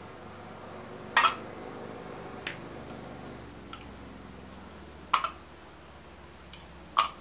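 Candle wax being crumbled by hand, the bits falling into a small tin-can pan: a few sharp ticks a second or more apart, three of them louder than the rest.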